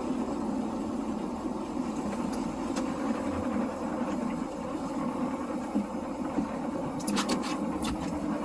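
A boat's engine running steadily underway, with a few short clicks near the end.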